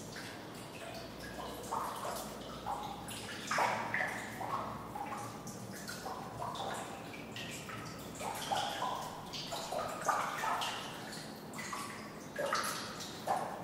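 Water dripping in a sewer pipe or culvert, heard at a distance: irregular plinks and plops of several pitches, a few a second, over a low steady hiss of room tone.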